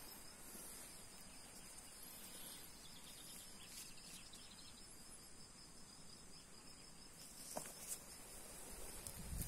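Faint outdoor ambience: insects chirring steadily at a high pitch, with a couple of sharp clicks near the end and a low rumble on the microphone at the very end.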